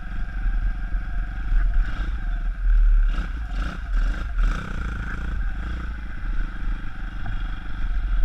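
A pit bike's YX 160cc single-cylinder four-stroke engine runs under way along a dirt trail. The engine is freshly fitted and being run in, so it is kept off high revs. A heavy low wind rumble sits on the helmet microphone, and a few clattering knocks from the bike come about three to four seconds in.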